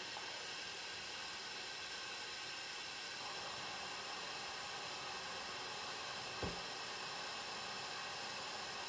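Steady even hiss of background noise, with one soft low thump about six and a half seconds in.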